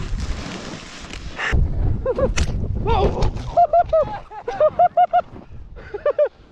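Wind and snow noise rushing over a helmet camera's microphone while riding and falling through deep powder, turning to a heavy low rumble about a second and a half in. A person's voice lets out short, repeated rising-and-falling cries in quick runs.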